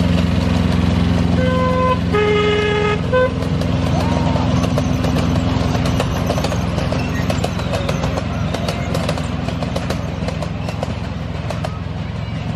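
Miniature Class 47 diesel-outline locomotive on 7¼-inch track running past with its engine droning steadily, sounding a two-tone horn about a second and a half in: a higher note, then a longer lower note, then a brief higher blip. As the train draws away the engine fades and a run of light clicks follows.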